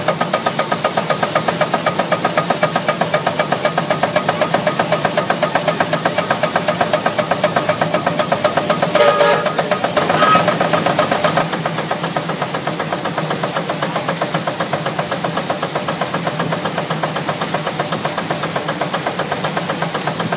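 1919 Emerson-Brantingham 60 hp steam engine running under belt load, driving a threshing machine: a fast, even beat over a steady low hum, with a brief louder burst about nine to eleven seconds in.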